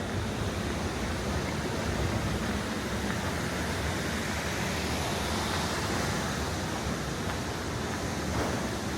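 Steady rushing ambient noise of an airport arrival area, with no distinct events standing out.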